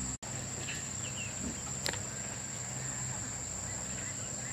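Insects calling in one steady, high-pitched drone, with a single sharp click about two seconds in.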